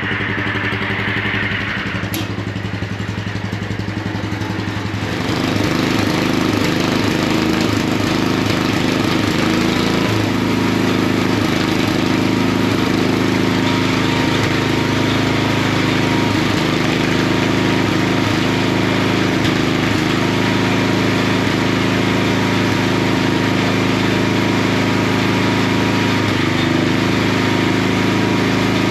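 Kohler K-Series 16 hp single-cylinder engine of a 1975 Wheel Horse C-160 garden tractor running while it warms up before a carburetor adjustment. It gets louder about five seconds in and then runs steadily at the higher speed.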